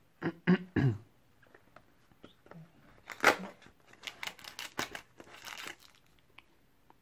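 A cardboard advent-calendar window being torn open by hand, and foil treat packets crinkling, in a run of short rips and rustles with the sharpest rip about three seconds in. A short low murmur of voice comes near the start.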